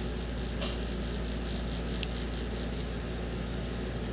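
Steady low room hum with two light clicks from the laptop under her hand, about half a second in and again about two seconds in.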